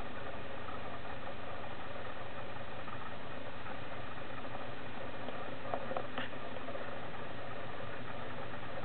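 Steady background hum and hiss, with a few faint clicks about six seconds in.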